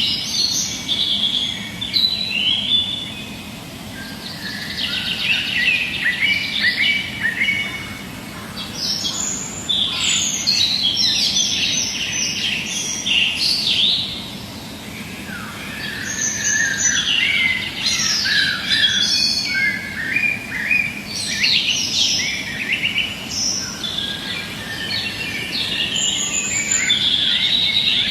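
A chorus of many birds chirping and calling at once, with dense overlapping short chirps that swell and thin out every few seconds.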